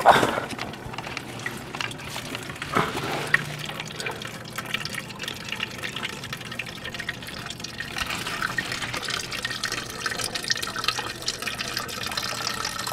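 Green engine coolant draining from a car radiator's drain cock into a plastic bucket, a steady pouring and splashing of liquid. There is a sharp knock at the very start.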